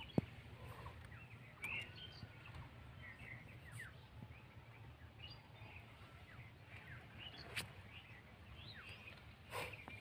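Faint scattered bird chirps and short whistled glides over a low steady hum, with one sharp click just after the start.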